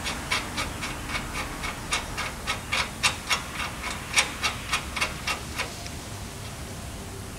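A string of light metallic clicks, three or four a second, from lug nuts being worked onto the wheel studs of a front brake rotor by hand. The clicking stops a little before the end, over a steady hiss.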